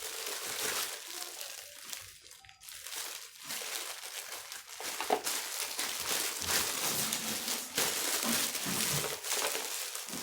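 Packaging crinkling and rustling as a silicone kitchen utensil set is unwrapped and handled. It eases off briefly about two seconds in, then carries on.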